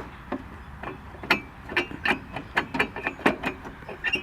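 Hand-cranked can opener working its way around the rim of an empty aerosol spray-paint can, making irregular sharp metallic clicks, about two or three a second.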